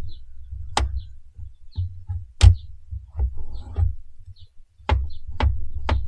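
Kitchen knife chopping vegetables on a cutting board: two single cuts in the first half, then steady chopping strokes about two a second from near the end, over a low rumble.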